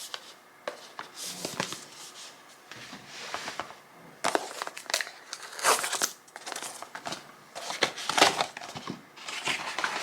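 Gift packaging being handled and opened: paper and plastic wrapping rustling and crinkling in irregular bursts, with some tearing.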